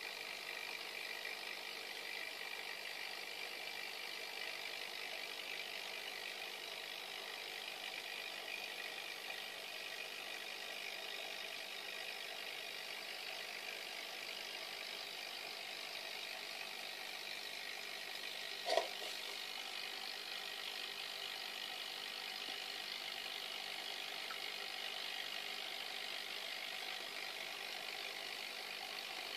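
Steady mechanical hum of running aquarium equipment, with one short click about two-thirds of the way through.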